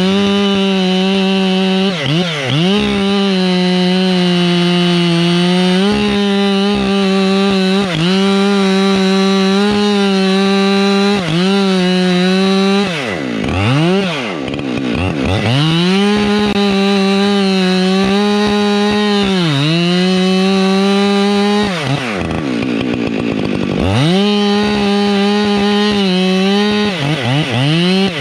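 Husqvarna 592XPG two-stroke chainsaw held at full throttle cutting into a pine trunk. The revs dip and recover several times under load, and the saw is eased off to a lower speed twice, near the middle and about four-fifths of the way through.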